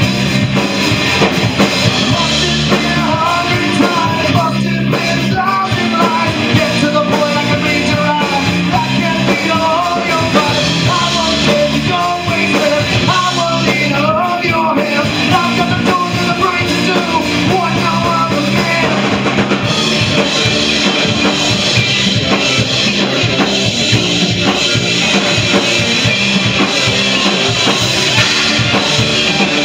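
Rock band playing live: electric guitar, electric bass and drum kit.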